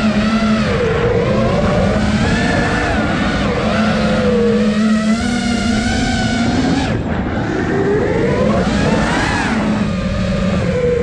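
5-inch freestyle FPV quadcopter's brushless motors and propellers whining, the pitch rising and falling repeatedly with the throttle, over a steady rushing hiss.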